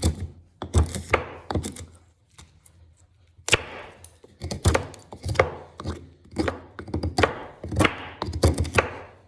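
Handmade 1075 carbon-steel knife whittling wood: about ten short, sharp slicing strokes, with a pause of about a second and a half after the first few.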